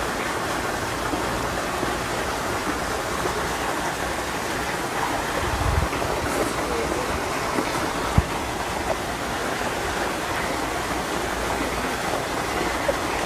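Steady rushing water noise, like rain or a nearby stream, with a couple of brief soft knocks about halfway through.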